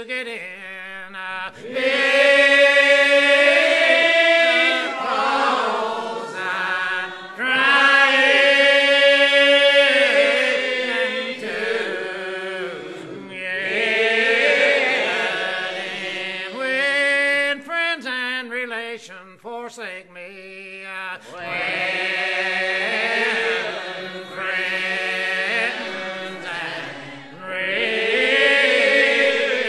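Unaccompanied voices singing a hymn very slowly, holding long wavering notes in phrases several seconds long with short breaks between them. This is a call-and-response style of hymn singing, chant-like, with no instruments.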